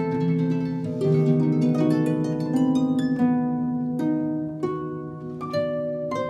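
Instrumental music of plucked strings: single notes ring out and fade one after another over held low notes.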